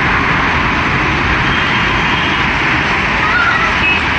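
Heavy road traffic: a loud, steady din of passing cars and trucks.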